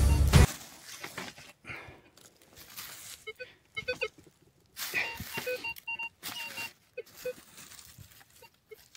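Background music cuts off about half a second in. Then a Minelab Vanquish metal detector gives short beeps of several pitches, low and high, as its coil passes over a buried target, among light scraping of dry leaves and soil.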